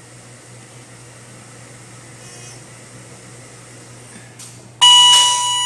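Steady low machine hum, then near the end a loud electronic elevator beep: one held tone with overtones that starts suddenly and lasts about a second.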